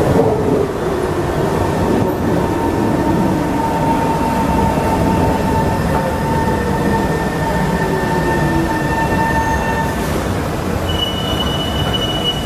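An SMRT East West Line metro train pulling into the station and slowing to a stop, its whine sliding down in pitch as it slows. Steady high squealing tones cut off about ten seconds in, and a higher steady tone starts near the end over the rumble of the train.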